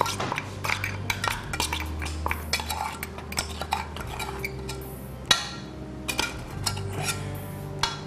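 A metal spoon scraping and clinking inside a small steel spice-grinder jar, clearing out freshly ground masala in a run of irregular scrapes and taps, with one sharper knock about five seconds in.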